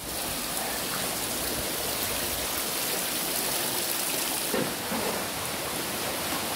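Steady hiss of heavy rain and running floodwater, with one brief louder swell about four and a half seconds in.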